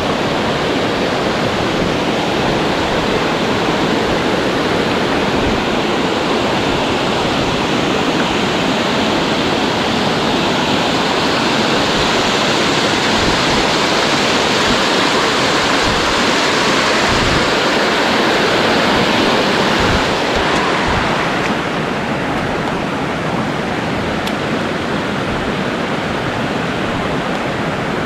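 Loud, steady rush of a waterfall: a dense hiss of falling water with no break, easing slightly about three-quarters of the way through.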